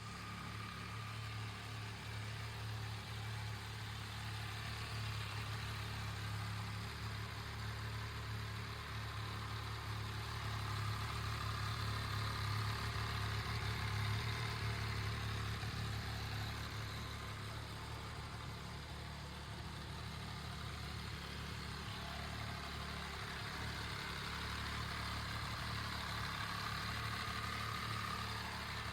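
MV Agusta Brutale 800's three-cylinder engine idling steadily.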